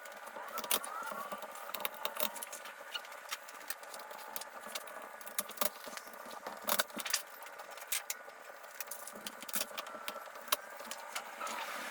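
Thin aluminium sheet-metal aircraft kit parts being handled and shuffled: a steady run of light clicks, clinks and scrapes.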